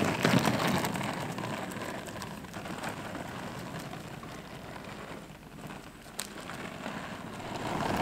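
Penny board's small plastic wheels rolling over rough asphalt: a steady rolling noise that fades as the board rolls away, then grows again near the end.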